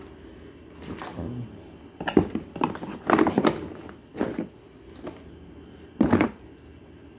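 Cardboard packaging and a laptop power cord being handled: a handful of short knocks, scrapes and rustles as the plug and cable are pushed into a cardboard compartment of the box. The loudest come around two to three and a half seconds in and again about six seconds in.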